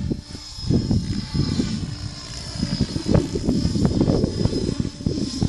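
Mikado Logo 800 Xxtreme electric RC helicopter flying high overhead, its rotor and motor giving a steady high whine, under an irregular low rumble.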